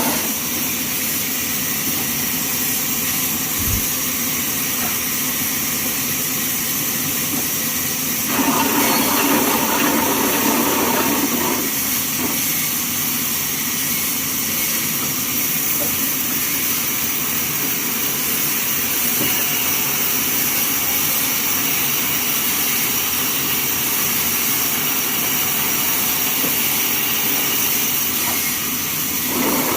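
Band sawmill running, a steady loud machine noise with a strong hiss. About eight seconds in, a louder, lower-pitched surge lasts about three seconds.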